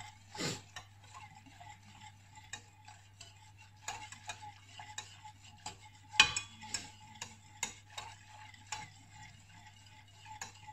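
A metal spoon stirring pudding mixture in a stainless steel saucepan, clinking irregularly against the sides and bottom, with one louder clink about six seconds in.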